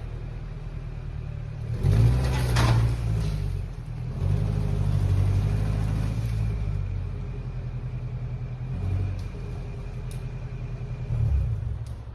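Motor vehicle engine running with a low rumble and revving up in surges: about two seconds in, again from about four to six seconds, and near the end.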